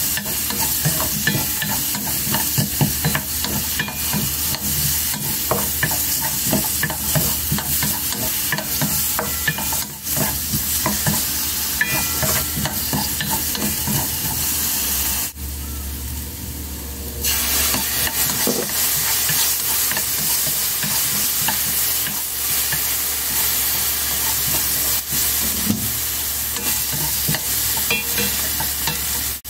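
Diced carrots sizzling in oil in a pan over low heat, with a wooden spatula scraping and tapping against the pan as they are stirred. The sizzle drops away for about two seconds midway.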